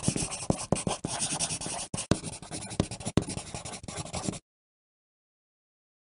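Pencil writing on paper: a run of scratchy strokes with a few sharper taps. It breaks briefly just before two seconds in and cuts off suddenly after about four seconds.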